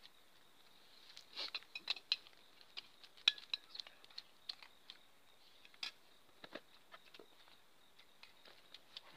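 Spoons clicking and scraping against plates as several people eat, in scattered light clicks that come thickest in the first few seconds.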